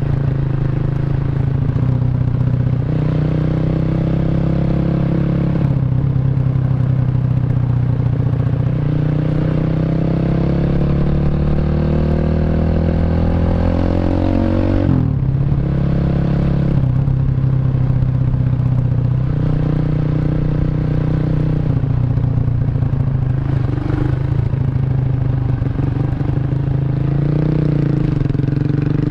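Single-cylinder four-stroke engine of a Honda Revo bored up to 150cc, through a CLD C7 aftermarket exhaust, under way: the pitch holds and steps through several gear changes, climbs steadily for about six seconds around the middle, then drops sharply at a shift and builds again.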